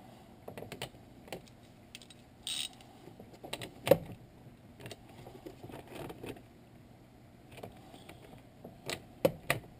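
Hand socket ratchet clicking in short, uneven runs, with light metal clicks of the socket and extension, as a 12 mm lock nut is run onto a dashboard dimmer switch. One click about four seconds in is louder, and a cluster of clicks comes near the end.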